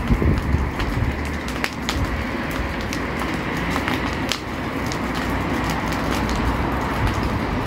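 Dry brush fire burning, with irregular sharp crackles and pops over a steady rushing noise and a low rumble.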